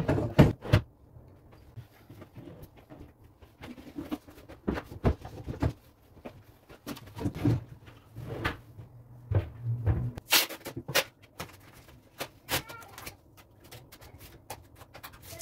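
Wooden drawers being slid onto metal runners and pushed into a bathroom vanity cabinet: a string of irregular knocks and clicks, the sharpest about half a second in and again around ten seconds in.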